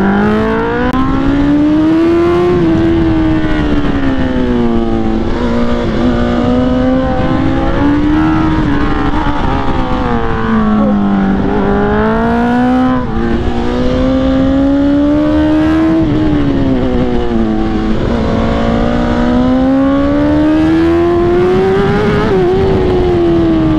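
Superbike engine heard from on board at high revs, its pitch climbing and falling every few seconds as it is held through a run of corners, over a steady rush of wind.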